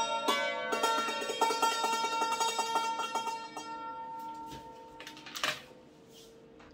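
Thai khim (hammered dulcimer) struck with bamboo beaters, playing a run of quick notes that stops about three and a half seconds in. The strings are left ringing and fade away as the closing notes of the tune. There is a brief noise about five and a half seconds in.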